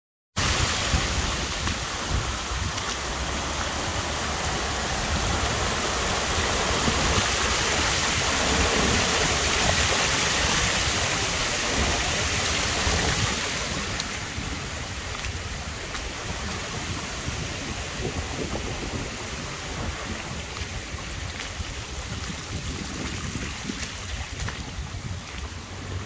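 Shallow beck water rushing over a stepped stone weir and its riffles: a steady rush that becomes softer about halfway through.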